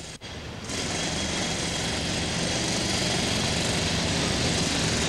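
Steady street noise with a low engine-like rumble under an even hiss, starting suddenly about a second in after a brief dropout.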